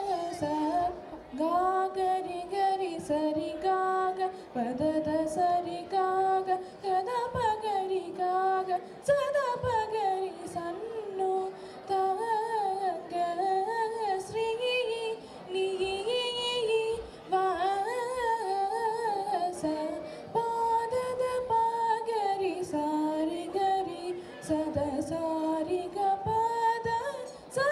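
A girl singing solo into a handheld microphone: a slow melody of held, gliding notes, with short breaks for breath between phrases.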